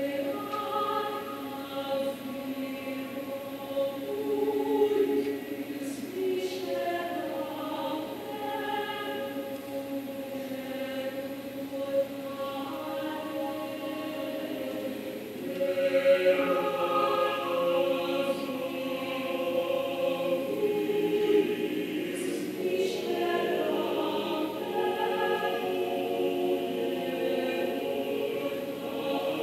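Mixed chamber choir singing a cappella in sustained, overlapping vocal lines, growing louder about halfway through.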